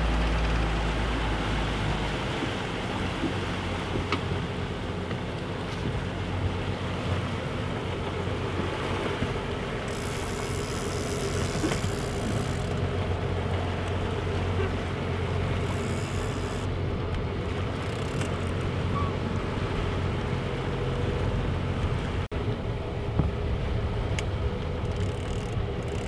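Boat engine running steadily at trolling speed, with water rushing past the hull and wind on the microphone; a few brief stretches of hissing spray.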